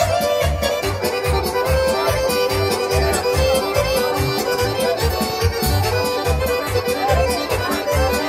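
Loud amplified Serbian folk music led by an accordion over a steady bass beat.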